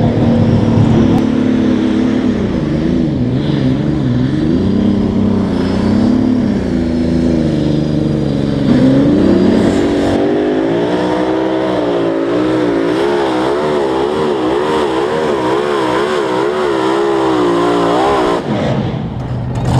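Engine of a tractor-pulling competitor running flat out under load, its revs wavering up and down. About nine seconds in the pitch climbs and then wobbles about twice a second, until the engine note drops away suddenly near the end.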